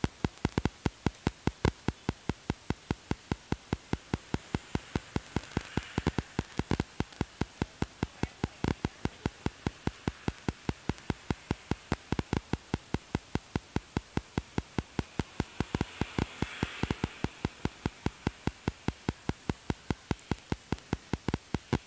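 Steady, evenly spaced clicking, about four sharp clicks a second, with faint rustling swelling twice.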